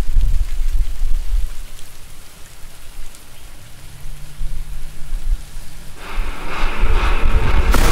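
Intro of an electronic dance track: a low rumbling noise, rain- or thunder-like, then from about six seconds in a rising swell that builds toward the beat.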